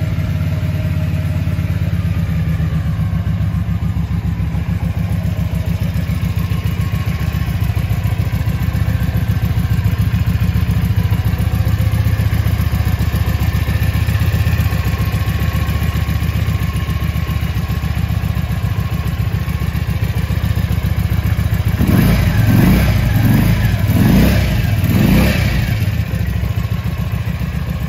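Benda Funrider 125 (Keeway RKV 125 C) motorcycle's 125 cc liquid-cooled V-twin engine idling steadily, then revved in several quick throttle blips near the end.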